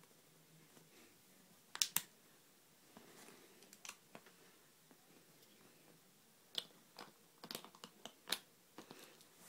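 Light clicks and taps from hands handling the phone and the camera: a sharp double click about two seconds in, a few faint ones after, then a quick run of small clicks near the end.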